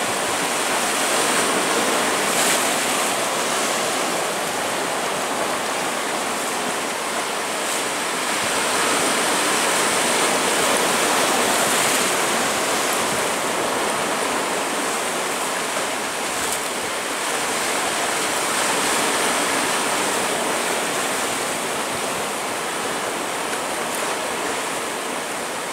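Atlantic surf churning and washing over shoreline rocks, a steady rush of water that swells and eases a little.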